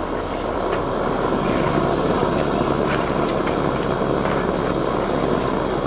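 Gas burner under a hot air engine being lit and burning with a steady rushing noise that grows a little louder about a second in, with a few faint clicks.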